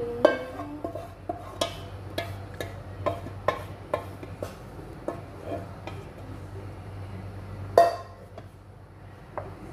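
Wooden spatula knocking and scraping against an aluminium bowl as thick blended soup is scraped out, sharp knocks about every half second; one louder knock near the end.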